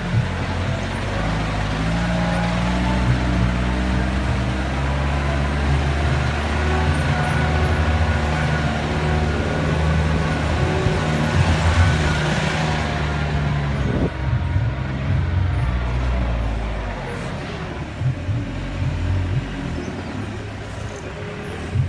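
Vehicle engine running under load as it drives over a rough dirt track, with tyre and road noise; it eases off somewhat about three-quarters of the way through.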